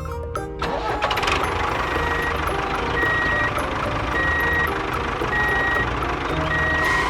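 A vehicle's engine running with a reversing alarm beeping steadily, about once a second. It comes in under a second in.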